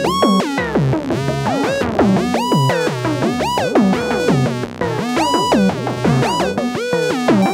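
Korg Volca analog synthesizers (Volca Bass, Volca Keys and Volca Kick) playing a sequenced electronic pattern. Its notes swoop in pitch and repeat about twice a second, while the Volca Bass pattern is edited live.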